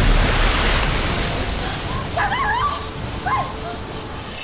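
Film sound effects: a loud rushing noise that fades over the first two seconds, then short high wavering squeals twice, creature-like, typical of the mutant cockroach swarm.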